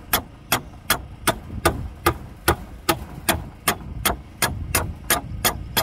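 Hammer striking a steel rod set through wooden concrete formwork: a steady run of sharp metallic blows, about two to three a second.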